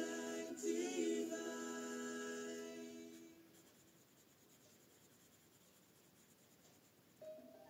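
A woman humming a tune softly, in held notes that stop about three seconds in. After that only the faint scratching of coloured pencil on paper remains, until a new hummed note comes in near the end.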